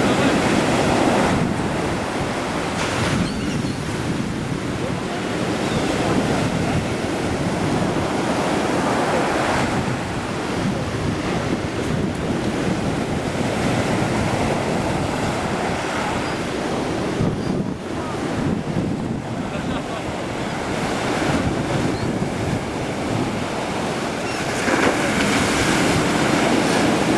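Black Sea surf breaking and washing onto the shore, one wave after another every few seconds, with wind buffeting the microphone.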